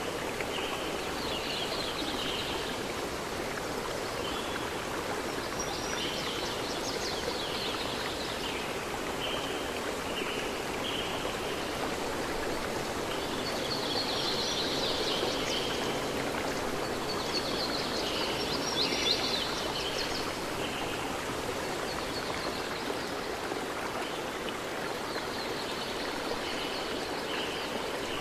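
Water running steadily, like a stream, with birds chirping in short bursts every few seconds.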